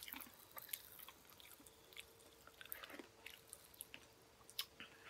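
Faint, scattered crackles and tiny pops of sour Pop Rocks candy fizzing in the mouth, with some chewing.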